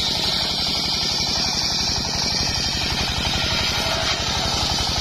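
Engine-driven circular saw bench running with a steady, rapid engine pulse; near the end its blade is ripping a mahogany log lengthwise.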